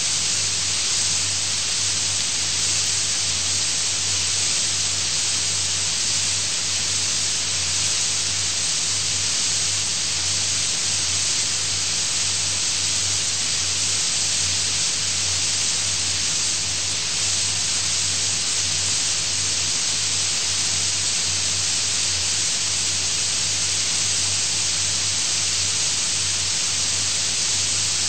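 Steady hiss of an old audio recording with no speech, with a low steady hum underneath.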